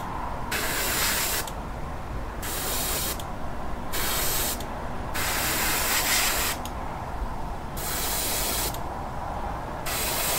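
Airbrush spraying paint in about six short hissing bursts of roughly a second each, trigger pressed and released, over a steady low hum.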